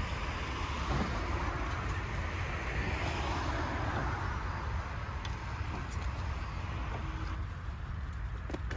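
Wind buffeting the microphone as a steady low rumble over an even outdoor hiss, with a few faint ticks in the second half.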